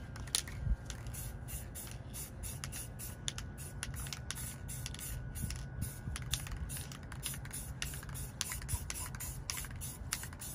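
Aerosol spray can of Krylon Fusion matte gray paint spraying onto a rifle in many short hisses, several a second.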